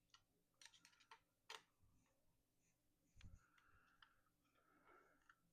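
Faint, scattered clicks and light taps of small bike cockpit parts (shifter and brake lever) being handled and fitted on a handlebar, with a soft low knock about three seconds in.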